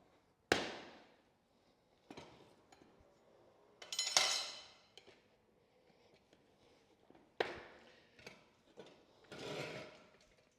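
Steel tire irons working a motorcycle tire's bead over the wheel rim: four sharp metallic clanks, the loudest about four seconds in with a brief ring, and rubber scraping against the rim between them.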